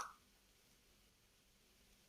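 Near silence between plays of the Facebook 'like' pop sound effect, whose last pop fades out in the first instant.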